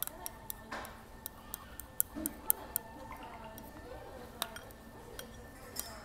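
Light clicks and clinks of tableware during a meal, quick and irregular through the first three seconds and sparser after, over faint murmur of voices in the background.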